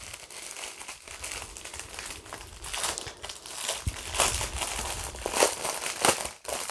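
Plastic packaging of a diamond painting kit crinkling and rustling as it is handled, in irregular bursts with a few louder crackles in the second half.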